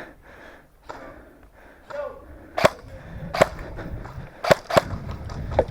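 Airsoft gun firing single shots: five sharp cracks at irregular spacing over about three seconds, starting about two and a half seconds in.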